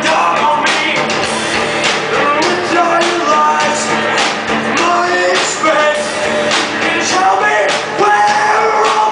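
Rock band playing live, a lead vocal singing over the full band.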